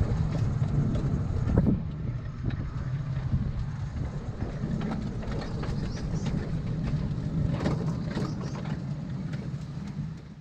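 Ride-on 7¼-inch gauge miniature railway locomotive running along the track, a steady low rumble with scattered clicks and knocks.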